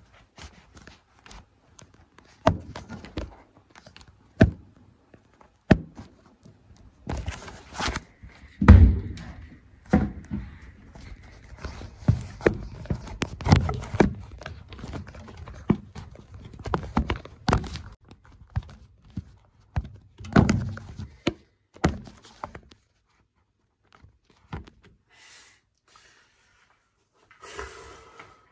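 Phone handled close to its microphone: irregular clicks, knocks and thumps, the loudest about nine seconds in, thinning out to near quiet after about twenty-two seconds.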